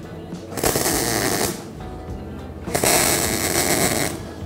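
MIG welder arc in two bursts of about a second each, tack-welding small steel standoffs onto the back of a steel wall hanging.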